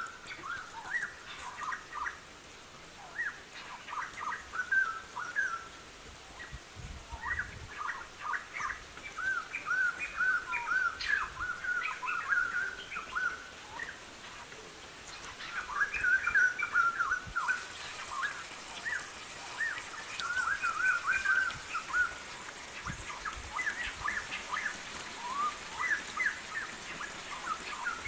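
Birds chirping: many short, quick high notes in loose runs throughout, with a faint high hiss joining about two-thirds of the way in.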